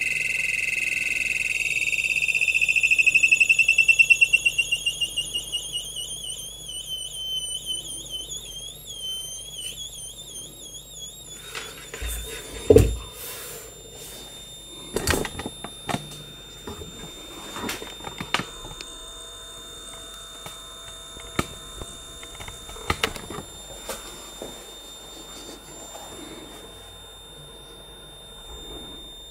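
High-pitched electronic whine from a Bedini SSG motor generator, climbing slowly in pitch and fading away over the first ten seconds or so. Then scattered clicks and knocks of handling and button presses, with one sharp thump about 13 seconds in.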